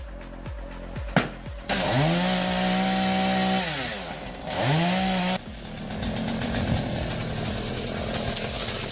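Chainsaw revved up to full throttle and held for about two seconds, dropping back, then revved again briefly before cutting off suddenly; a lower, rougher steady running sound follows. Background music plays underneath.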